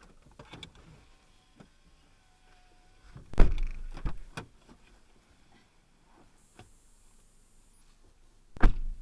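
Car door thunks as someone gets out of the car: a loud thunk about three and a half seconds in with a second, smaller knock and shuffling just after, then another sharp thunk near the end.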